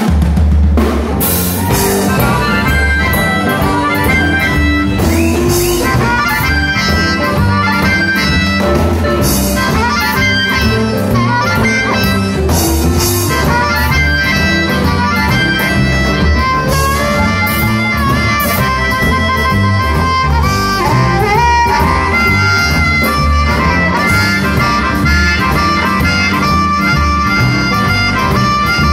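Live blues band: a harmonica, cupped against a handheld microphone and amplified, plays a solo over electric guitar, keyboard and drum kit. The harmonica comes in about two seconds in, after the full band has started.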